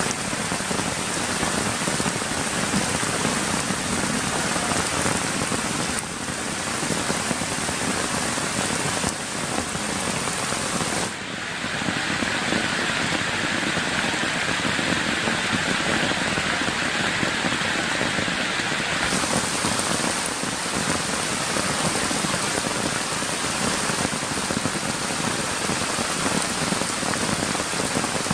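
Heavy rain falling steadily on grass, leaves, stones and puddles: a dense, even hiss. For several seconds in the middle the hiss turns duller, losing its highest part.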